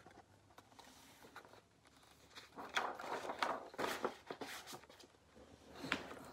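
Paper pages of a hardcover picture book being turned and the book handled: a burst of rustling and flapping in the middle, then one sharper rustle near the end.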